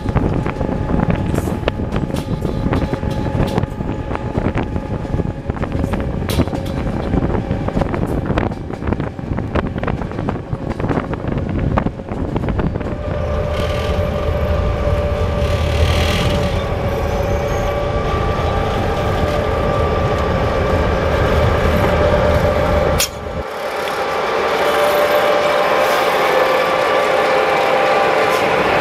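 BDZ Class 07 'Ludmilla' diesel locomotive on the move, first heard from the coach behind it: steady running noise and wind with many sharp clicks from the wheels on the track. About 13 s in the sound changes to the locomotive's V16 diesel engine running steadily with a droning note, and after a sudden cut near the end it is heard close up, still running, as it passes by.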